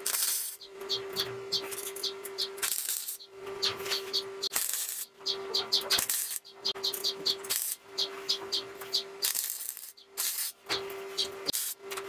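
Stick welder crackling and sizzling in repeated bursts of a second or so as steel strips are tack-welded onto a steel oil drum, with a steady hum that comes and goes with each burst.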